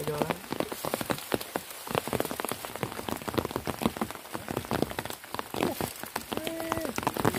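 Heavy rain falling, with a dense, continuous patter of drops striking close by.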